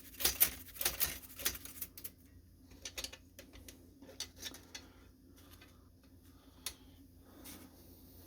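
Mechanical clicks and light scratchy scrubbing from work on an antique Chicago typewriter, likely the mineral-spirits brushing. They come thickly for the first two seconds, then as scattered single clicks.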